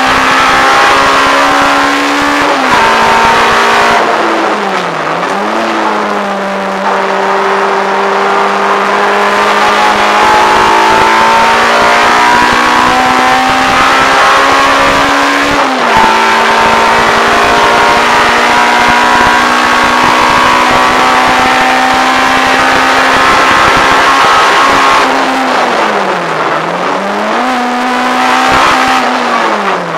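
Peugeot 106 GTi's four-cylinder engine on Jenvey individual throttle bodies, heard from inside the cabin, running hard at high revs on track. The revs sag and climb back about three seconds in and twice near the end, and step up around halfway.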